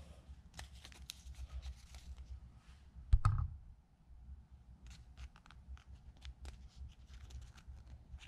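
Folded origami paper crinkling and crackling as it is handled and shaped by hand, a string of small crisp ticks. One dull thump about three seconds in.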